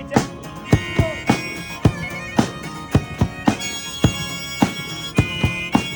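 Live busking music: a reedy wind instrument holds sustained notes over a sharp percussive beat that falls about twice a second.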